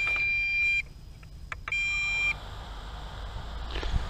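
Low-battery warning beeps from the MJX Bugs 3's radio transmitter: a steady high-pitched electronic tone that cuts off about a second in, then a second, shorter beep of the same pitch around two seconds in.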